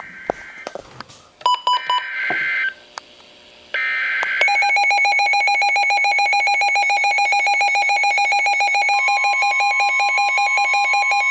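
Emergency Alert System tones: three short screeching digital SAME header data bursts about a second apart, then from about four and a half seconds in the long EAS attention alarm tone, fluttering rapidly, with a second, higher steady tone joining near the end.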